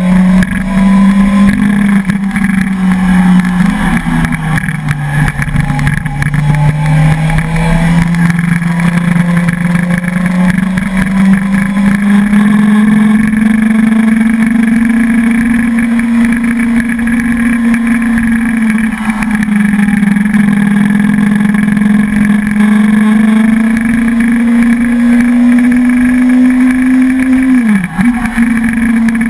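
Suzuki sport motorcycle engine running under load on a climb, heard from on the bike. Its note sinks about four seconds in, rises slowly for the next twenty seconds, and dips briefly near the end.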